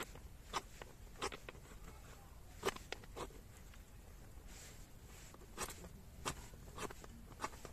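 A flint stone scraped hard along a metal fire-starter rod to strike sparks onto tinder: short, sharp scrapes, about eight of them at an irregular pace, with a pause of about two seconds in the middle.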